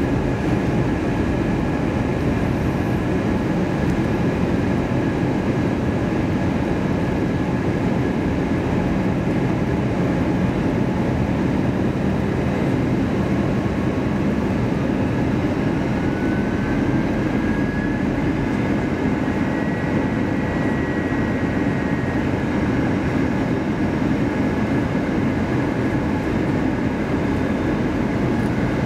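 Steady cabin noise inside an Airbus A321-200 on descent: a low rumble of engines and rushing air with a thin steady whine over it. A faint rising tone comes in about halfway through.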